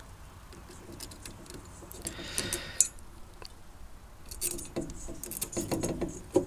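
Small metal clicks and rattling from handling meter test leads and clip leads on a workbench. There are two spells of rattling, a sharp click a bit under three seconds in and another sharp click near the end.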